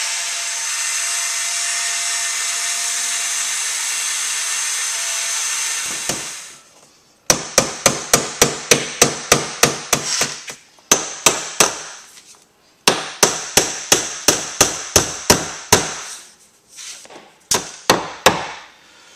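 A small electric drill runs steadily, boring a pilot hole in wood trim, and winds down about six seconds in. Then a hammer taps quickly and lightly in several runs of about four to five blows a second, driving finishing nails into the trim.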